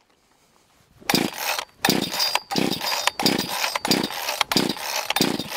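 Cheap off-brand two-stroke gas chainsaw being pull-started with the choke on. About seven quick pulls of the recoil starter cord come roughly one every 0.7 seconds, each a short whir of cord and cranking engine. The engine does not catch: the saw has no throttle lock, so the throttle is not held open.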